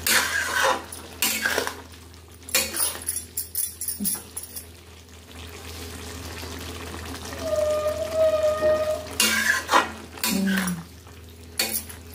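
Flat metal spatula scraping and clanking against a metal kadhai as a thick turnip and greens curry is stirred, in several bursts with quieter gaps between.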